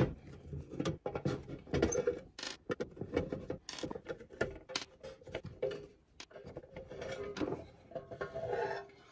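Screws being backed out of a rework station's metal case with a screwdriver, with irregular clicks, small knocks and scrapes as the screws are set down on the desk and the case is handled.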